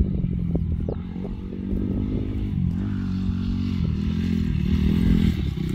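Honda CRF 250R dirt bike's four-stroke single-cylinder engine running as the rider weaves through a line of cones, its pitch rising and falling with the throttle.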